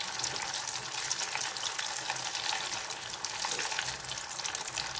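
Hot oil sizzling steadily around a flour-coated, meat-stuffed potato ball deep-frying in a saucepan, with a dense patter of fine crackles.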